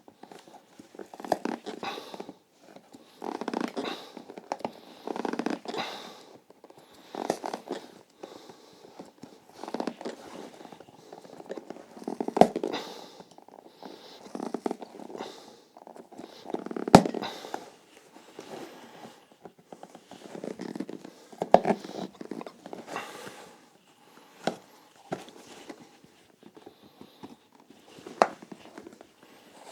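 Hand tools working nails out of a leather shoe sole: a series of short scraping strokes, about one a second, broken by a few sharp clicks.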